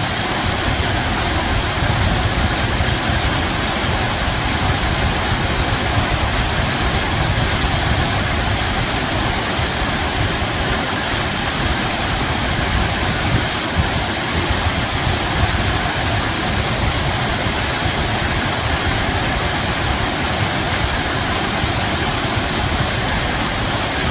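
Water rushing steadily, an even hiss over a deep low rumble.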